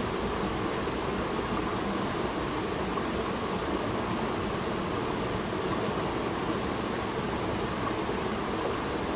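Steady, even rush of a shallow stream running over rocks.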